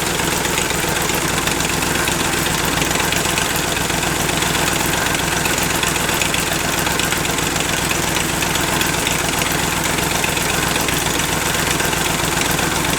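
Chevrolet 283 small-block V8 running on four cylinders with one cylinder head removed, idling steadily with a rapid mechanical clatter.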